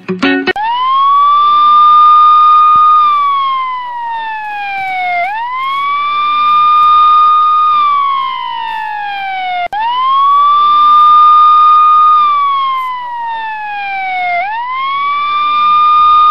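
A wailing siren: its pitch rises quickly, holds high for about two seconds, then slides slowly down before rising again, repeating about every four and a half seconds. A guitar tune cuts off just before the siren starts.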